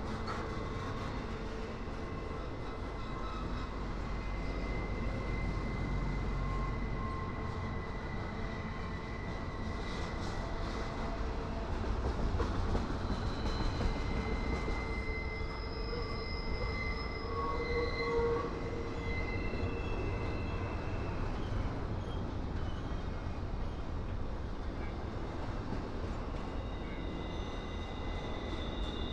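Double-stack intermodal freight cars rolling past on curved track: a steady low rumble of steel wheels on rail, with thin, high wheel squeals that come and go.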